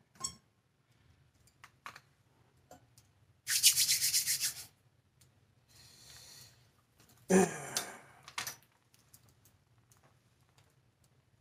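Multi-wire soap loaf cutter in use: a scraping rub that lasts about a second, a fainter one, then a louder scrape a few seconds later, followed by a couple of short clicks.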